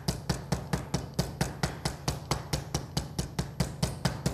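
Meat mallet pounding a plastic-wrapped chicken breast on a wooden cutting board, quick, even taps at about five a second, working a tough spot in the meat to tenderize and flatten it.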